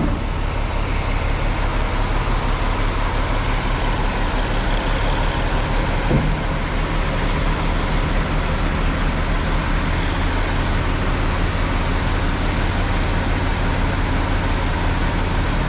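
Semi truck's diesel engine running steadily with a low hum while the raised dump trailer bed is being lowered; the hum grows a little stronger about ten seconds in.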